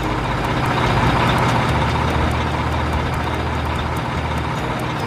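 Mobile crane truck's diesel engine running steadily as the crane drives slowly.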